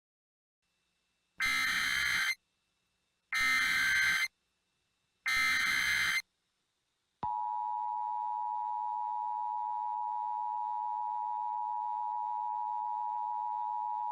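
Three one-second bursts of Emergency Alert System SAME header data, then about seven seconds in the EAS two-tone attention signal starts and holds steady.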